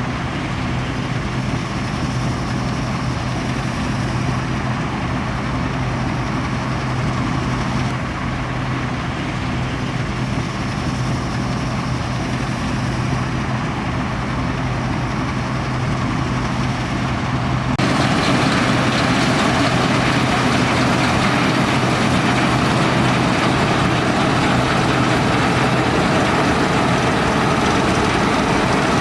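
Fortschritt E517 combine harvester running steadily at work, its Schönebeck V8 diesel giving a constant drone with machinery noise over it. About 18 s in the sound jumps louder and harsher.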